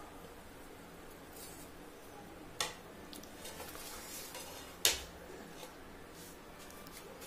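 Steel ladle stirring vermicelli into milk in a steel pot, knocking against the pot: two sharp metal clinks about two seconds apart, the second louder, with lighter taps between.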